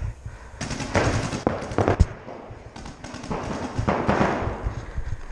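Bursts of rustling and clatter from the player's gear and the body-worn camera moving, with one sharp knock about two seconds in.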